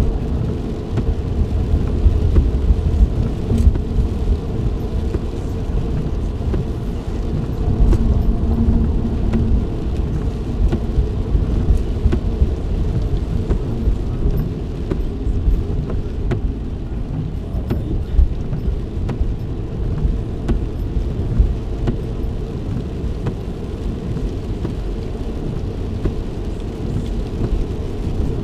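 Steady low rumble of a car being driven, road and engine noise heard inside the cabin, with a few faint ticks.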